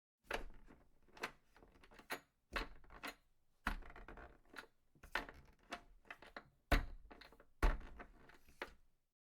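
A series of irregular knocks and clatters, about a dozen sharp strikes, some with a heavy low thud, the loudest near the end.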